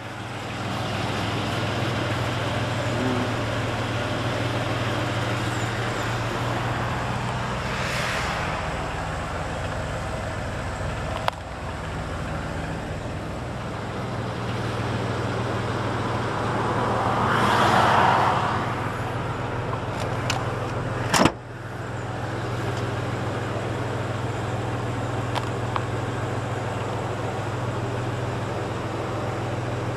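Road traffic noise over a steady low hum, with vehicles swelling past twice and two sharp clicks, the second click the loudest moment.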